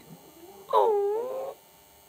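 A Lhasa Apso giving one short, whining howl about a second in, its pitch dipping and then rising again.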